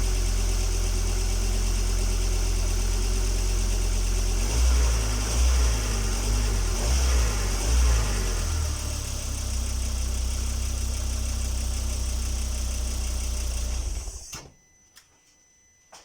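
Volvo XC90's 2.5-litre turbo petrol engine running on a cold start, blipped up and down several times in the middle, then settling back to idle before the sound cuts off suddenly near the end. A whistle at cold idle comes from a leaking exhaust manifold gasket, first mistaken for the turbo, and goes away when the revs are raised.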